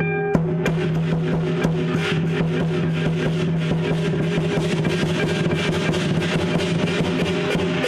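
Lion dance percussion: drum and cymbals struck in a fast, dense rhythm over a low, steady ringing tone.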